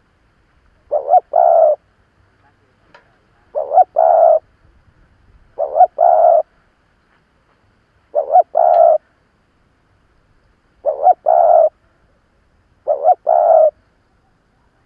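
Spotted dove cooing: six phrases about two to two and a half seconds apart, each two quick short notes followed by a longer coo. It is the call of a mature decoy bird, used to draw wild doves in.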